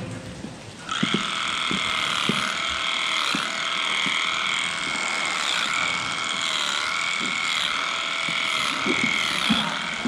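Hand-held electric clipper running steadily while trimming a cow's tail switch, a high whine whose pitch dips slightly now and then. It starts about a second in and cuts off just before the end.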